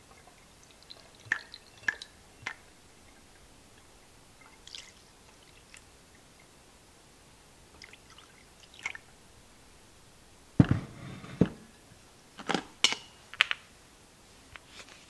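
Water poured slowly into a Cuisinart thermal carafe's lid and draining through it, heard as scattered small drips and trickles. About ten and a half seconds in comes a heavier dull thump with a brief gurgle, then a few sharp clicks and taps.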